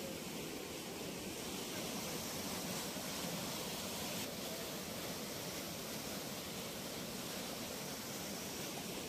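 Floodwater rushing through a concrete-lined canal: a steady, even rushing hiss.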